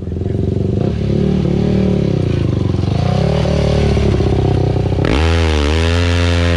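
Sport quad bike (ATV) engine being ridden on dirt, its pitch rising and falling with the throttle, then a hard rev about five seconds in that dips and climbs again.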